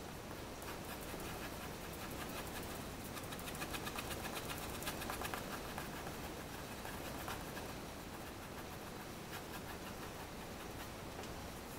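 Pencil scratching on drawing paper in quick back-and-forth hatching strokes, densest and loudest from about three to seven seconds in, over a steady hiss.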